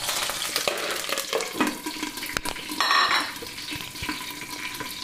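Green chillies dropped into hot mustard oil in a steel kadhai, sizzling and crackling hard as they fry. A sharp metal clank about two and a half seconds in, followed by a brief metallic ring.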